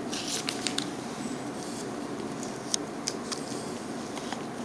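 Plastic packaging pouch rustling and crinkling as it is handled, with a burst of small crackles and clicks in the first second and a few single clicks around three seconds in, over a steady background hiss.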